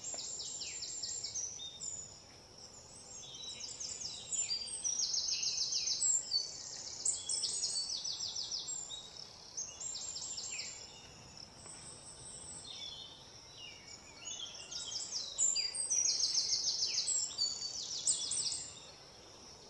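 Small birds chirping and trilling, many high calls overlapping, some as rapid buzzy trills and some as quick falling notes. They are busiest around four to seven seconds in and again around fifteen to eighteen seconds in, with a quieter lull between.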